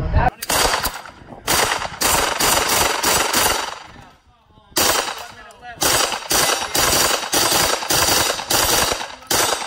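Gunfire on a shooting range: a quick string of shots at about two to three a second, a break of about a second near the middle, then another steady string of shots.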